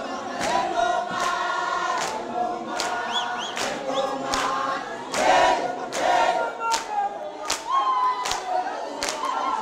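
A crowd singing together, many voices in one melody, with sharp strokes keeping a steady beat about one and a half times a second.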